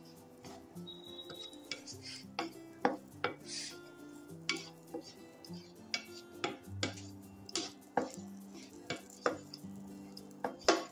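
Wooden slotted spatula stirring raisins roasting in ghee in a nonstick frying pan: irregular knocks and scrapes against the pan, about one or two a second, the loudest near the end.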